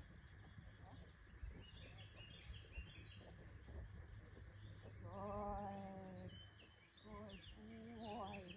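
Faint songbirds chirping outdoors, and about five seconds in a drawn-out, wavering call lasting over a second, followed by two shorter wavering calls.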